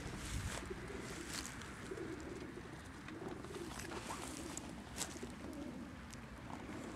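Many racing pigeons cooing together, crated in a transport trailer before a training release: a continuous wash of overlapping low coos, with a few short clicks, the clearest about five seconds in.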